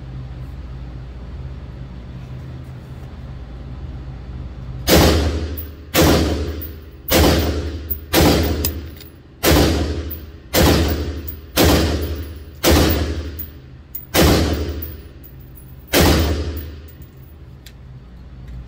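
AR-15 rifle fired ten times at an indoor range, starting about five seconds in, at roughly one shot a second, with the last two spaced a little wider. Each shot rings and echoes off the range walls. A steady low ventilation hum runs underneath.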